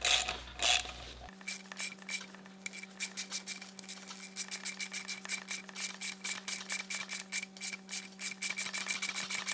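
Socket ratchet clicking in quick, even strokes, about five clicks a second, as it turns a thread chaser through a dirty blind threaded hole in a transmission case.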